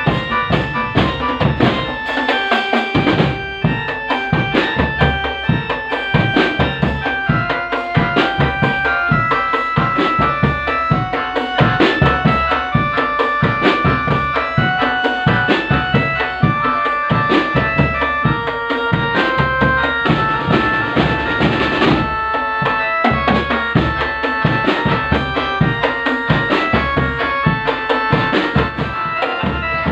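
Drum band music: a steady bass-drum beat under a melody of held notes, with the low drum dropping out briefly twice.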